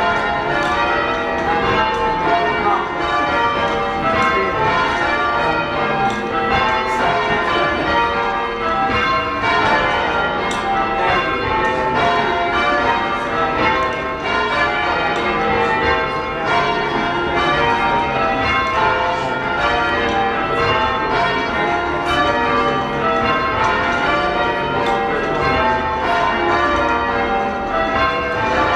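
Full-circle church bells in change ringing, struck one after another in an unbroken, even rhythm, rung by hand from ropes in the ringing chamber below the bells.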